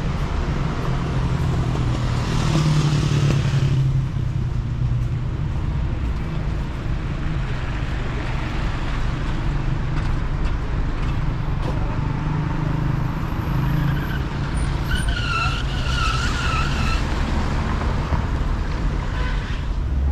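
Street traffic: a steady rumble of car engines and tyres, with a car passing by louder about two to four seconds in. A brief wavering high-pitched sound comes around fifteen seconds in.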